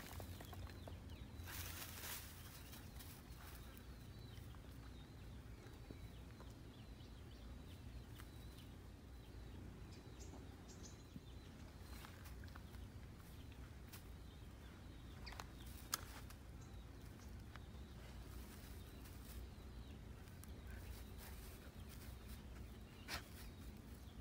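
Quiet outdoor ambience: a steady low rumble with a few brief rustles and clicks, the sharpest about two-thirds of the way through, and a few faint high bird chirps near the middle.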